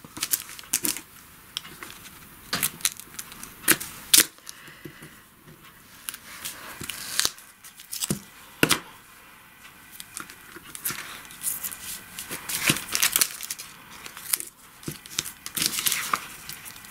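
Masking tape pulled off its roll and torn, with paper envelopes rubbed and shifted on a table: irregular sharp tearing and crinkling noises, the loudest about four and eight seconds in.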